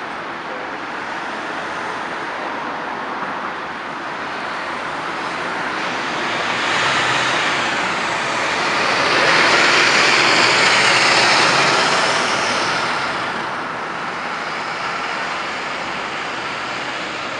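A Megabus diesel coach drives past close by. Its engine and tyre noise swells to its loudest about ten seconds in, then fades as the coach pulls away down the street.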